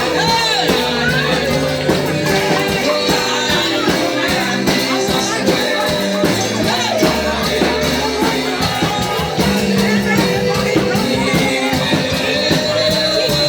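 Upbeat gospel band music with a steady percussion beat, with voices singing along over it.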